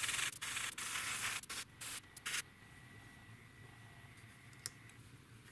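Airbrush spraying paint in several short hissing spurts over the first two and a half seconds, then stopping.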